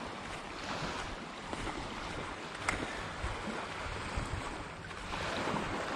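Wind buffeting the microphone over small waves washing onto a beach, a steady rushing noise, with one sharp click about two and a half seconds in.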